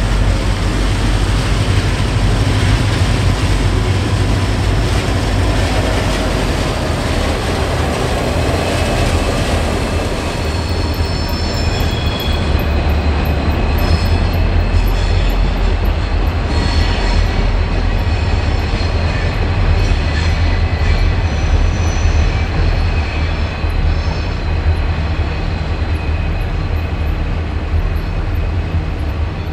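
Diesel-electric locomotives of a Pacific National XR, X and G class light-engine consist running at low speed, a steady low rumble. From about a third of the way in, high-pitched wheel squeals come and go as the locomotives work over curved track.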